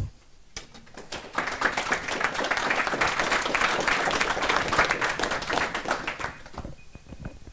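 Audience applauding: dense clapping that swells about a second in and dies away after about six seconds.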